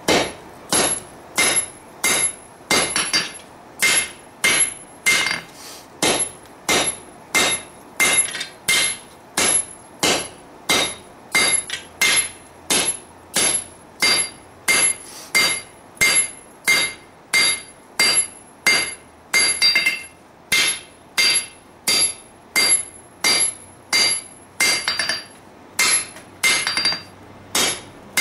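Hand hammer striking red-hot steel on an anvil in a steady rhythm of about one and a half blows a second, each blow ringing. This is drawing out the tang of a forged sword blade.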